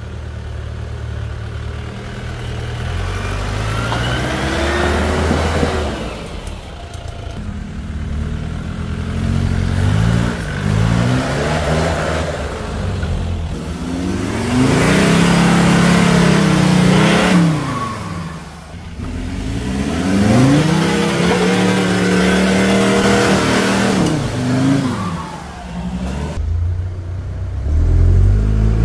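Off-road 4x4 engines revving up and easing off again and again as the vehicles crawl one after another over rough dirt ground, the pitch rising and falling in long glides. Loudest about halfway through and again near the end.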